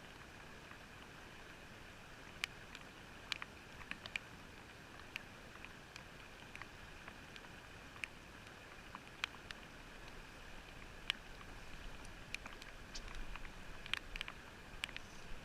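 Faint steady hiss with irregular sharp clicks and ticks that come more often near the end, muffled by a watertight camera housing.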